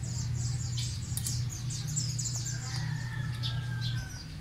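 Small birds chirping and twittering in quick, high calls, with a few falling whistled notes, over a steady low hum.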